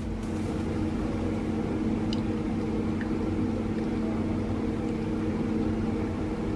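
A steady, even hum of a running motor, holding the same low pitch throughout.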